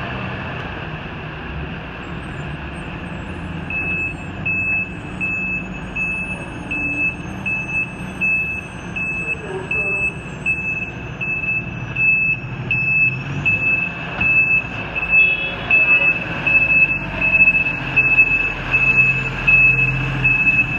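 Fire engine's reverse alarm beeping steadily, a little over once a second, starting about four seconds in and growing louder as the truck backs in, over the low rumble of its diesel engine running.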